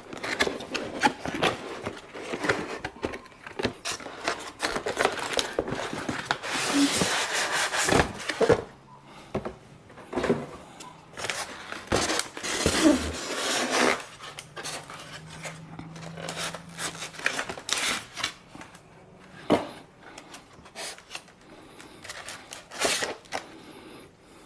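Cardboard speaker box opened and a polystyrene foam packing insert pulled out and handled, with rubbing and scraping of the foam and card and a string of knocks and clicks.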